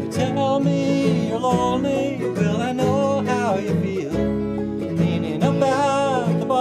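Acoustic bluegrass band playing: mandolins and acoustic guitar picking with banjo, under a wavering, bending melody line.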